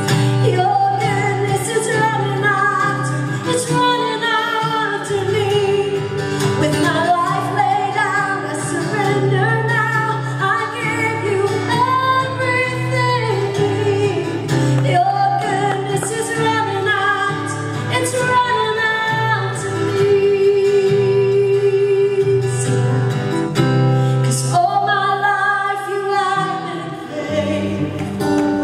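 A woman singing a slow worship song into a microphone, accompanied by guitar.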